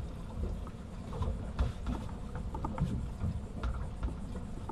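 Uneven low rumble of wind buffeting the microphone on an open boat, with scattered light knocks and taps.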